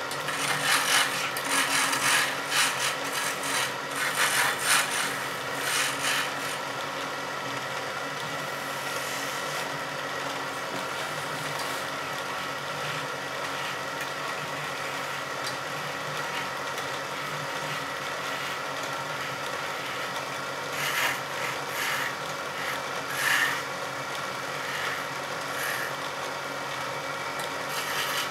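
Wood lathe running with a steady hum while a hand-held chisel cuts into the spinning wood, giving rough scraping bursts of shaving through the first six seconds and again for a few seconds near the end, with the lathe humming alone in between.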